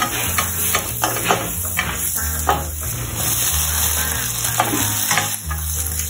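Minced garlic and chopped leeks sizzling in oil in a stainless steel pan, stirred with a wooden spoon that scrapes across the pan in short repeated strokes.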